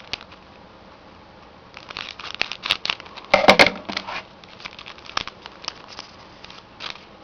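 Foil wrapper of a hockey card pack crinkling and tearing as it is ripped open, a dense run of crackles loudest about halfway through, followed by scattered clicks as the cards are handled.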